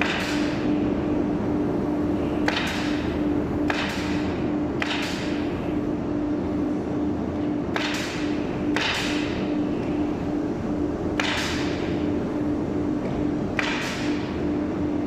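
CNC machine running: a steady hum, with a sharp hiss every one to three seconds that fades over about half a second.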